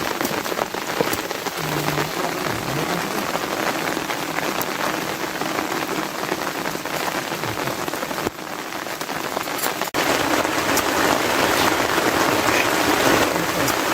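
Heavy rain falling steadily. About ten seconds in there is a sudden break, after which the rain comes back somewhat louder.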